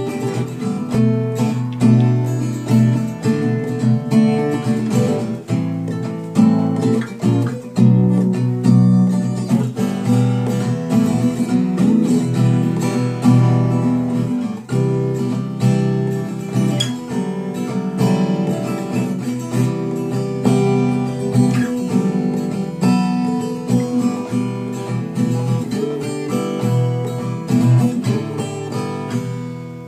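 Acoustic guitar strummed and picked in a blues style, playing continuously and dying away right at the end.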